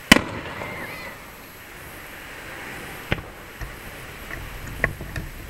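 Aerial firework shells bursting: a loud bang just after the start, another about three seconds in, and a smaller report near the end.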